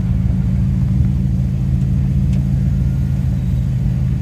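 A vehicle engine running at steady revs: a low drone that holds one pitch and stops abruptly at the very end.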